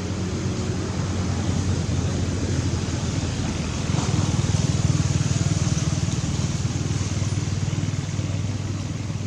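A motor engine running steadily, growing louder about four seconds in.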